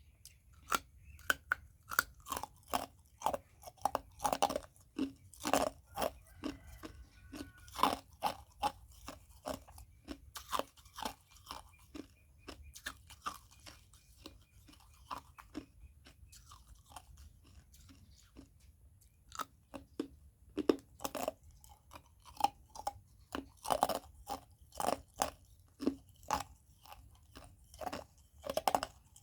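Ice being bitten and chewed, a rapid string of sharp crunches that thins out for several seconds in the middle and then picks up again.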